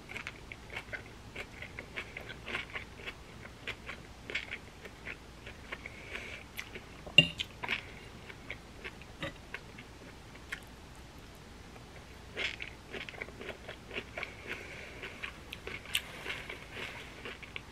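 A person chewing and smacking on a mouthful of jajangmyeon, with irregular wet mouth clicks that come in clusters. A single sharp tap stands out about seven seconds in.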